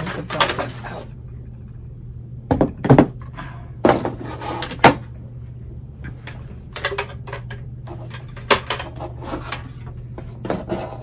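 Knocks and clunks of a white plastic bucket and plastic pots being handled and set down, the loudest a few seconds in, followed by lighter clicks and rustles as the orchid in its plastic basket pot is picked up again.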